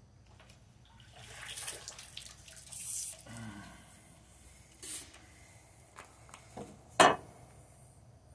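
Water splashing in several short bursts as a hooked tilapia is landed, then one sharp knock near the end, the loudest sound.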